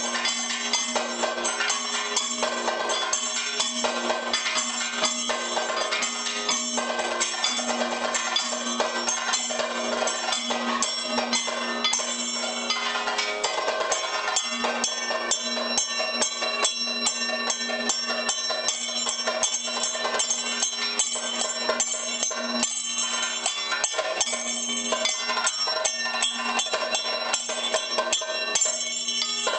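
Kathakali percussion ensemble playing: maddalam and other drums struck in fast, dense strokes, with small hand cymbals (ilathalam) ringing, over a steady held drone note.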